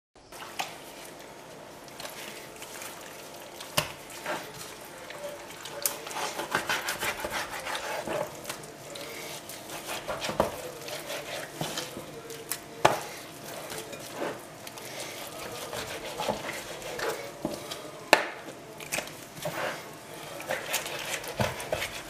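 Kitchen knife cutting raw turkey meat on a plastic cutting board, starting just after a moment of silence: irregular sharp taps of the blade on the board between quieter sounds of the meat being handled.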